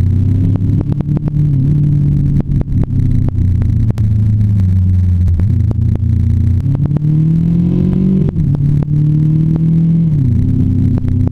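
Motorcycle engine running under way through bends. It rises steadily in pitch for a couple of seconds, drops sharply about two-thirds of the way through, and dips again near the end. Frequent crackles of wind buffet the bike-mounted microphone.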